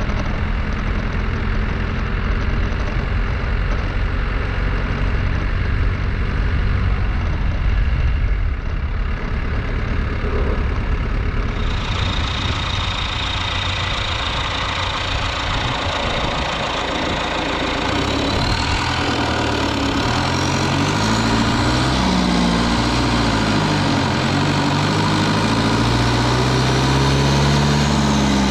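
Cummins 4BT 3.9-litre turbo diesel four-cylinder running. It is first heard from inside the cab while driving. About twelve seconds in it is heard close up at the open engine bay, where its pitch rises and falls in the later part.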